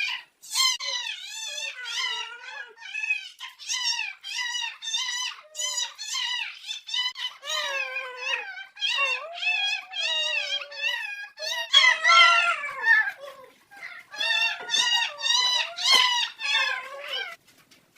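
A young pet animal, a puppy or kitten, giving a continuous run of short, high, wavering whining cries, several a second; they stop shortly before the end.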